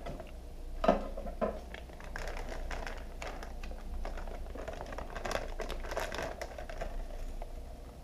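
Anti-static bag crinkling and rustling in the hands as a graphics card is slid out of it.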